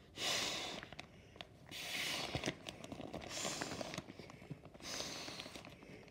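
Air being blown by mouth into the valve of a Sea to Summit inflatable sleeping mat: four rushing puffs about a second and a half apart, with small clicks between them, as the mat inflates.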